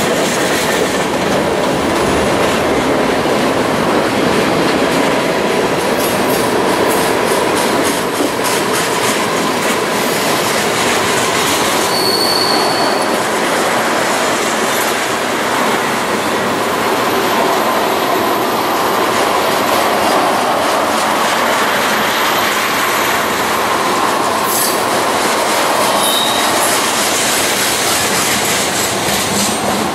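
Norfolk Southern freight train's cars rolling past on a curve: the steady rumble and clatter of steel wheels on rail, with wheel flanges squealing in brief high tones now and then.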